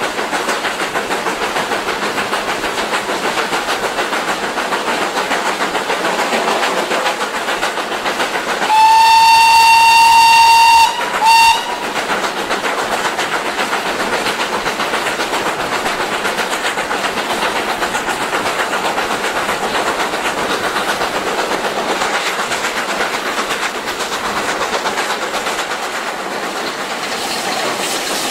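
GWR King class four-cylinder 4-6-0 steam locomotive heard from its footplate running at speed, a steady rush of exhaust and wheel noise with a fast, even pulse. About nine seconds in, the locomotive's whistle sounds one long blast of about two seconds, then a short toot right after.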